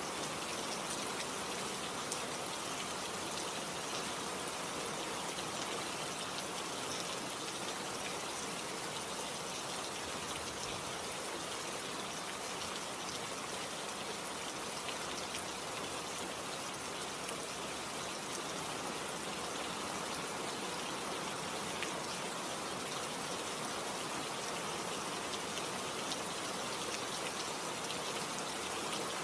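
Steady rain falling, an even hiss of many small drops pattering on surfaces.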